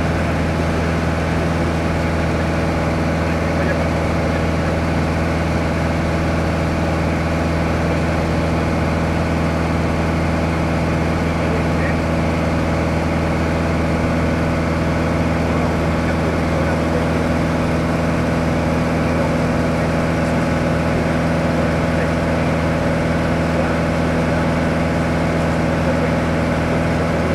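Light touring aircraft's engine droning steadily in cruise, heard from inside the cabin, with an even pitch and level throughout.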